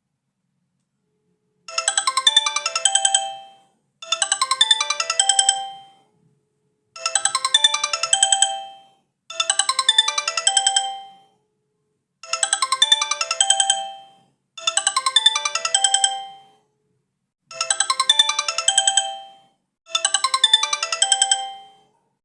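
Mobile phone ringtone: a fast electronic melody. It starts about two seconds in and plays as four pairs of short phrases, eight phrases in all, the pairs about five seconds apart.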